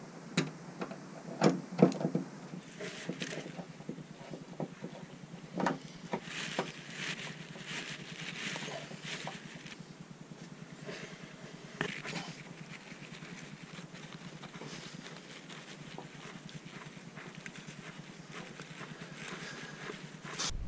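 Hand screwdriver driving small screws through a metal bottle opener into a wall: sharp clicks and knocks of metal on metal in the first few seconds, then scratchy scraping and grinding as the screws turn in.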